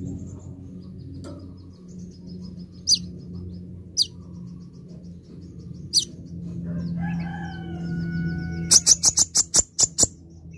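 Male sunbird (kolibri ninja) calling: thin, high twittering chirps, three sharp louder calls a second or two apart, then near the end a rapid burst of loud, sharp notes. A rooster crows in the background just before the burst.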